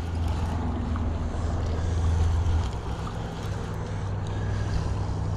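Spinning reel being cranked steadily to reel in a hooked channel catfish, its gears giving a low steady whir that shifts down about two and a half seconds in.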